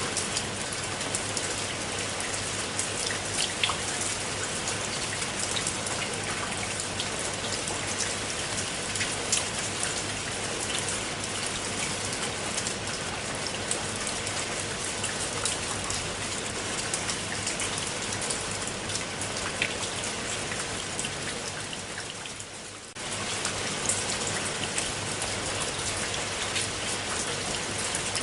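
Steady rain falling onto a pool of water: a dense hiss of drops, with sharp individual drop ticks standing out. About 22 seconds in the sound sags and dips for a moment, then cuts straight back in at full level.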